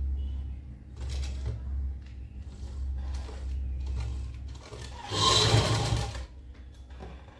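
Sewing machine stitching through fabric, running with a steady low hum, then a louder, noisier spell of about a second starting about five seconds in.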